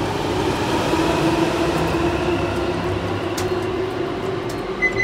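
Steady rumbling drone of underground station machinery, with a low hum held throughout.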